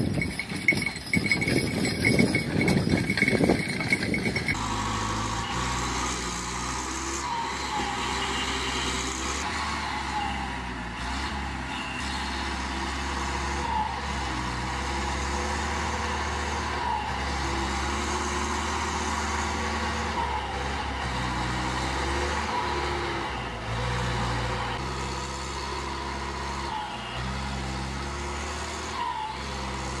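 Diesel engine of a wheeled forestry skidder working under load as it drags logs up a slope, its pitch stepping up and down with the throttle. It comes in suddenly about four seconds in, replacing a louder, spikier, noisier sound.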